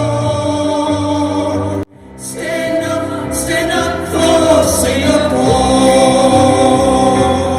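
Group of voices singing with backing music, holding long sustained notes. The sound cuts off abruptly about two seconds in, then a new held chord swells up and carries on.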